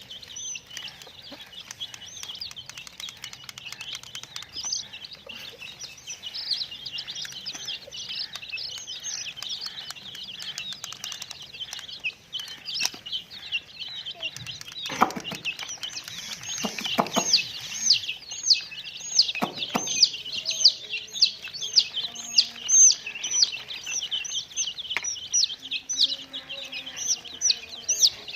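Baby chicks peeping continuously in high, falling chirps, which grow louder and more regular in the second half, about two a second. A few dull knocks come about halfway through.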